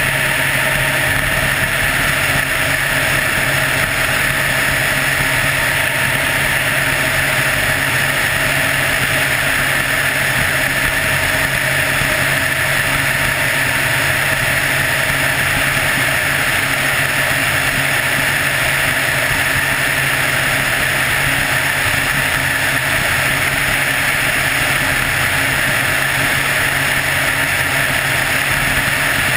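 Helicopter in steady cruising flight: the engine and rotor make a constant, loud drone that does not change.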